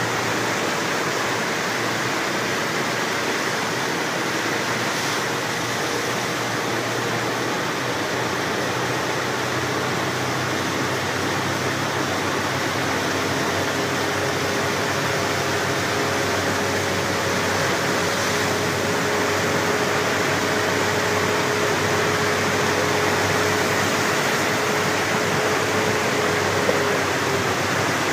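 Steady rushing noise of a cruise boat under way, the motor's faint even hum under the sound of air and water moving past.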